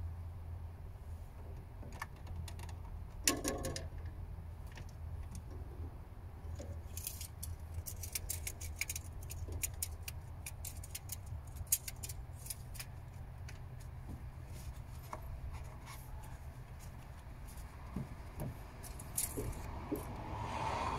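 Light metallic clicks and rattles, thickest in the middle, from small metal parts being handled in a car's engine bay while the oil level is checked. A steady low hum runs underneath.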